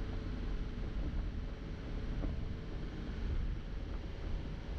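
Subaru Impreza driving on a gravel dirt road: a steady low rumble of tyres and engine, with a few faint ticks of gravel.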